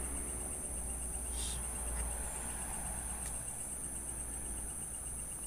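Steady high-pitched chorus of night insects such as crickets, with a low rumble underneath and a brief faint sound about a second and a half in.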